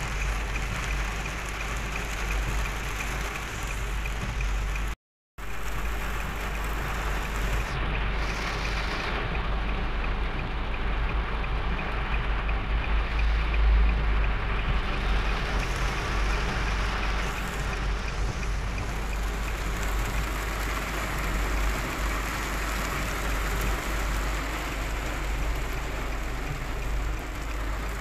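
Heavy rain drumming on a moving car, heard from inside the cabin, over steady tyre and road noise and a low rumble. The sound cuts out completely for a moment about five seconds in.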